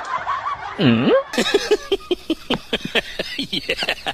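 A short vocal sound about a second in that swoops down and back up, then a person giggling in quick short bursts, about three or four a second.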